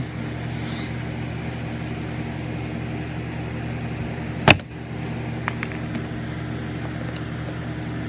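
A steady low mechanical hum, with one sharp knock about halfway through.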